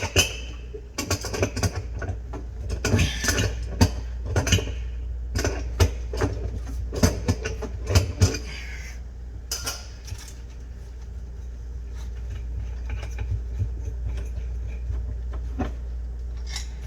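Metal clinking and knocking of a wrench on a plumbing shutoff valve and its brass fittings as the old corroded angle stop is worked off the supply pipe. The sharp clicks come thick for about the first eight or nine seconds, then thin out to a few, over a steady low hum.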